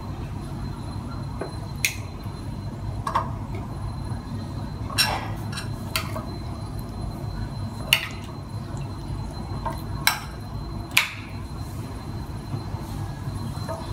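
Scattered clinks and knocks, about seven spread over several seconds, as a metal spoon and raw chicken drumsticks knock against a ceramic bowl of marinade, over a steady low hum.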